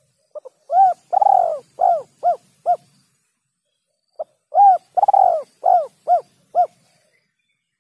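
Spotted dove (tekukur) cooing: two phrases, each a short first note, then a longer drawn-out coo and a run of quicker, shorter coos, each note rising and falling in pitch. It is a recorded dove call of the kind played as a lure to draw wild doves in for trapping.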